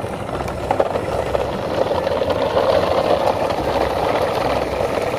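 A train of coupled plastic toy dump trucks rolling over gravel and dirt: a steady grinding rattle of the hard plastic wheels on the grit, with small clicks of stones.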